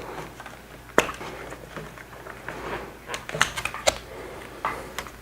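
Hands unplugging the EJK fuel-injection tuner's wiring connectors from a Yamaha WR250R's harness: a sharp plastic click about a second in, then a cluster of lighter clicks and rubbing around three to four seconds.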